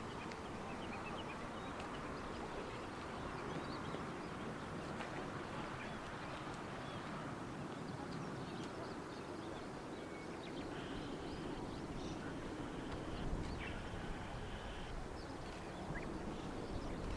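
Steady outdoor background noise with scattered bird chirps, and a high buzzy call that comes twice in the second half.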